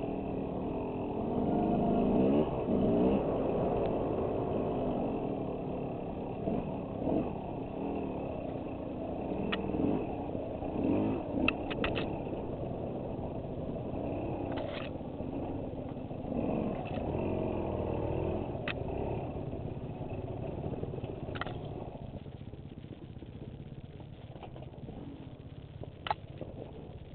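Off-road motorcycle engine heard from the bike itself, running under load and revving up and down as it climbs a rough trail. There are scattered sharp clicks, and the engine eases off near the end.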